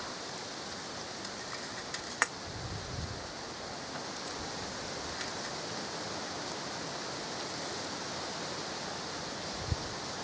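A few light metallic clicks and scrapes, the sharpest about two seconds in, as a fork slides grilled liver pieces off metal skewers into an enamel bowl, the skewers knocking the bowl's rim. Under them runs a steady rustle of leaves and breeze.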